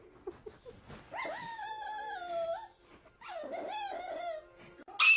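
A dog whining: two long, high, wavering whines one after the other, then a short loud sound near the end.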